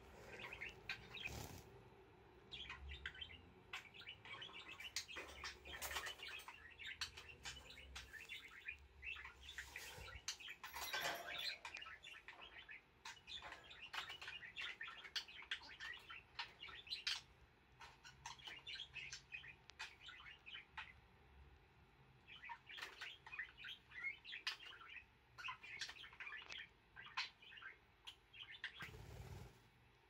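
Budgerigar with a missing upper beak chattering softly: runs of quick, high chirps and warbles broken by short pauses.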